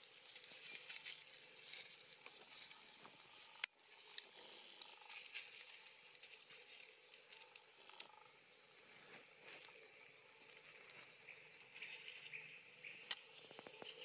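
Faint rustling and crackling of dry leaf litter as long-tailed macaques move about on it, with one sharp click about four seconds in.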